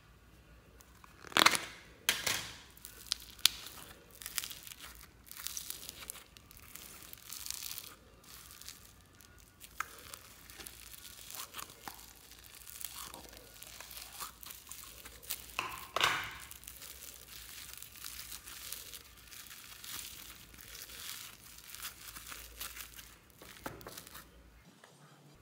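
Floam slime, full of tiny foam beads, being squeezed out of its plastic tub and pressed by hand, crackling and crunching in irregular bursts. The loudest crackles come about a second and a half in and again about two-thirds of the way through.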